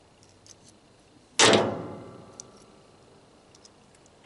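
A single sharp metallic clank about a second and a half in, ringing briefly as it fades, among a few light clicks of metal parts being handled during the dismantling of a dehumidifier.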